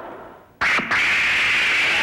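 A rumble dying away, then about half a second in a sudden, loud, screeching kaiju roar that breaks off briefly and then carries on, held high and steady.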